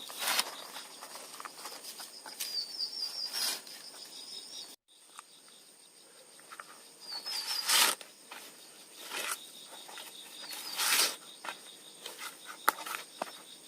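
Rural outdoor ambience: a small bird repeats a short trilled call every few seconds over a thin, steady, high insect drone, with brief rustling noises now and then. About a third of the way in, the sound cuts out for a moment.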